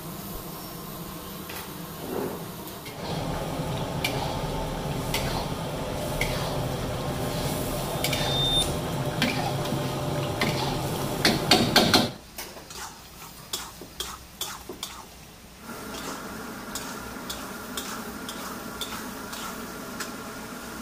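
Metal spatula stirring and scraping chicken in green masala around a steel karahi, clinking repeatedly against the pan over the sizzle and bubbling of the cooking sauce. The sound cuts off abruptly about twelve seconds in, then the clinks go on over a quieter steady background.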